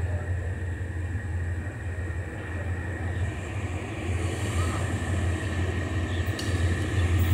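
GE diesel-electric locomotive running as it draws slowly into the station, a steady low engine hum that grows louder toward the end as it approaches.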